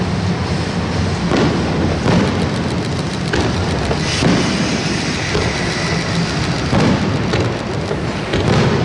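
D51 498 steam locomotive working hard across a steel truss bridge: heavy exhaust beats about once a second over the loud rumble and clatter of the train on the bridge.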